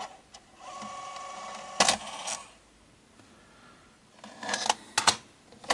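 Sony Video Walkman's Video8 tape mechanism running its small motor for about a second to eject the cassette, ending in a loud clunk; a few sharp clicks follow near the end as the cassette lid comes up.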